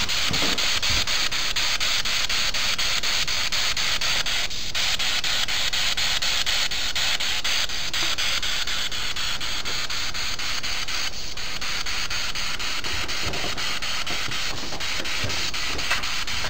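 Spirit box (radio-sweep ghost-hunting device) giving a steady, loud hiss of radio static, chopped by rapid regular ticks as it scans through stations.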